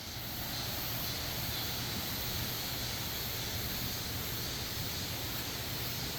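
A mountain stream running high after heavy rain, giving a steady rushing of water.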